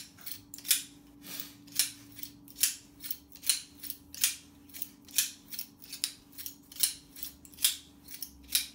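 Wire twister pliers being pumped over and over to twist 20-gauge wire, the spiral shaft spinning the jaws with each pull: a sharp metallic rasp a little more often than once a second, with smaller clicks between.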